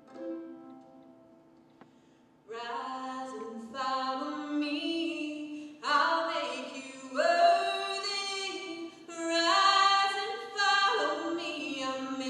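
Live bluegrass gospel vocal harmony: a woman's lead voice with other voices singing close harmony in long held notes, largely unaccompanied. It comes in loudly about two and a half seconds in, after a few faint fading notes.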